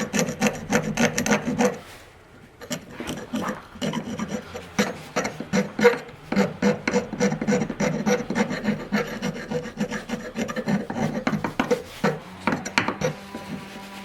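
Steel card scraper drawn in quick, repeated strokes across wooden chair parts, with a brief pause about two seconds in before the strokes carry on.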